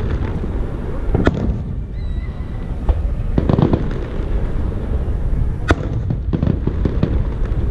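Fireworks going off: sharp single bangs about a second in and again near six seconds, with bursts of crackling shells around three and a half and six and a half seconds, over a steady low rumble.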